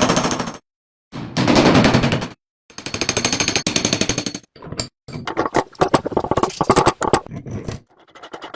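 A power tool working rusty metal: a rapid, rattling chatter of many strikes a second, in several short bursts that stop abruptly between cuts.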